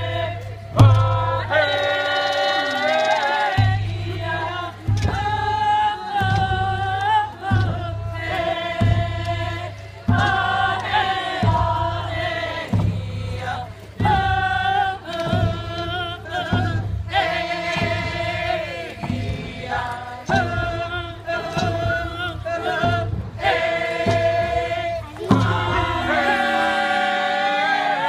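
A group of voices singing a Haida dance song in unison, phrase after phrase, to the steady beat of hide hand drums struck with beaters.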